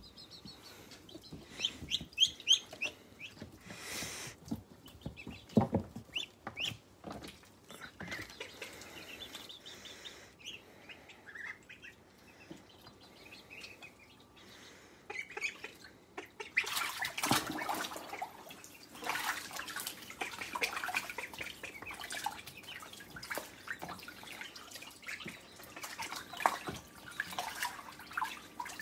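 Ducklings peeping with short, high calls, and bouts of splashing water about two-thirds of the way in as they bathe in a sink.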